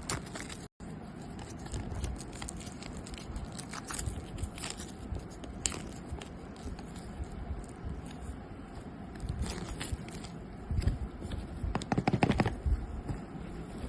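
Smartwatch retail box being opened and its packaging handled by hand: scraping, sliding and rustling with scattered small clicks and taps, louder toward the end. The sound cuts out briefly about a second in.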